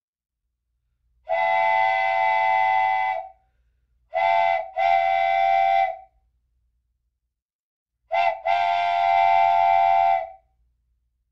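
A train whistle of several tones sounding together, blowing in a pattern: one long blast, then a short blast and a long one, then another short and long pair.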